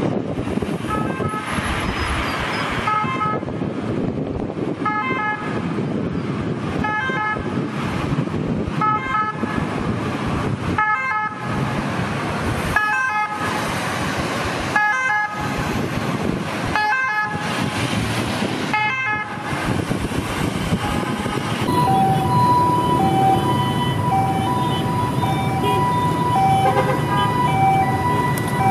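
Ambulance sirens in traffic: first a siren pattern repeating about every two seconds over road noise, then, after a cut about 22 seconds in, a two-tone hi-lo siren alternating between two steady pitches.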